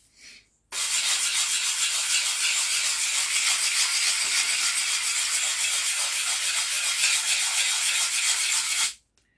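Abrasive paper on a hand-held block rubbed back and forth against a carving axe's steel head in rapid, even strokes, sharpening and polishing the edge bevel. It starts about a second in and stops abruptly near the end.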